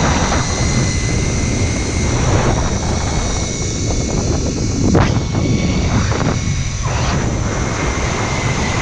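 Zip-line trolley running fast down the steel cable. A steady rushing roar of wind and pulley noise, with a faint steady high whine, swells briefly now and then.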